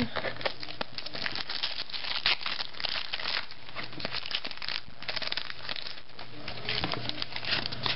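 Foil trading-card pack wrapper crinkling and crackling as it is handled and opened, a steady run of many small irregular crackles.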